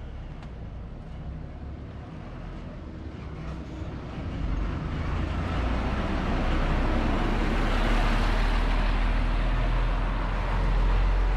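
Route bus pulling away from the stop and driving past close by. The diesel engine rumble and road noise build over the first several seconds and stay loud near the end as it heads off up the street.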